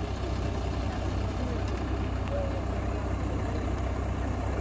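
A heavy engine idling steadily, a constant low rumble, with faint voices over it.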